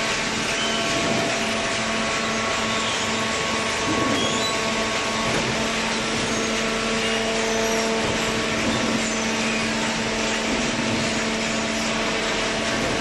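Hydraulic waste-paper baler running: a steady machine noise with a constant low hum from its motor and pump.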